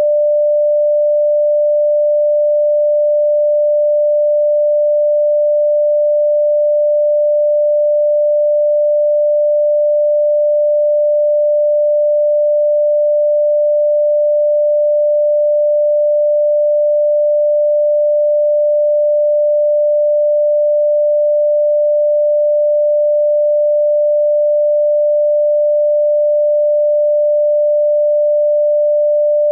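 A steady, unbroken pure tone at one mid pitch, electronically generated, with no change in pitch or loudness.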